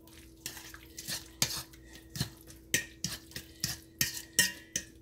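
A metal utensil stirring a thick chicken-and-cheese filling in a stainless steel mixing bowl, knocking and scraping against the bowl in an irregular run of clinks, several a second, some ringing briefly.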